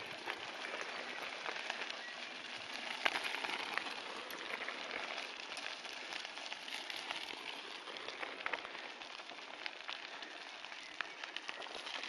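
Bicycle tyres rolling over a dry gravel trail, a steady crackling hiss with a few sharp ticks.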